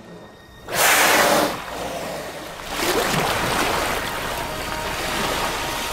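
A whale surfacing: a loud, sudden breath from the blowhole about a second in, then steady rushing and splashing of water as its fin or fluke breaks the surface.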